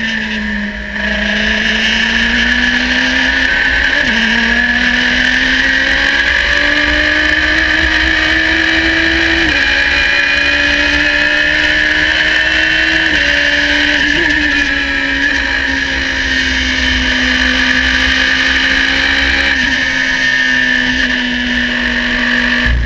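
Radical race car's engine heard at full song from the cockpit. The revs climb and drop sharply with two quick upshifts in the first ten seconds, then ease off gradually through a long corner, with wind noise over the open cockpit.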